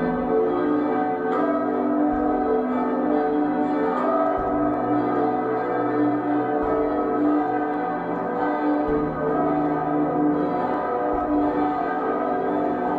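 Church bells ringing for a wedding: a peal of several bells sounding together, their strikes blending into long ringing tones.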